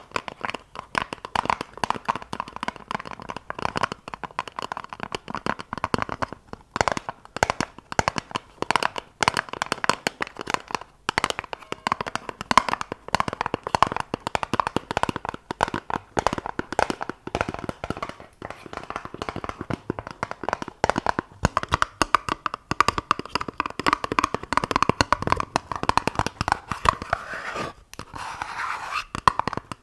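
Rapid ASMR fingertip tapping on objects, a dense run of many light taps a second that keeps going with only brief gaps.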